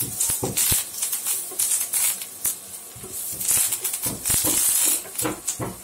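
Curry leaves, cumin and green chilli sizzling in hot butter in a nonstick pan, with a wooden spatula stirring and scraping in uneven strokes that bring bursts of hiss and small crackles.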